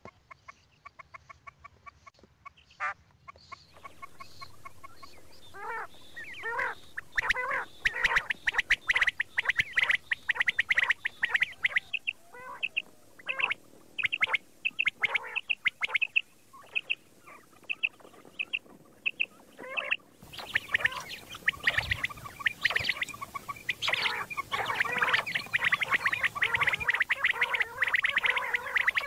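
Common quail calling over and over: many short, sharp calls in quick runs, closely packed and overlapping. The calls are sparse and faint for the first few seconds and dense from about six seconds on, and the background changes abruptly about four and twenty seconds in, as at edits in the recording.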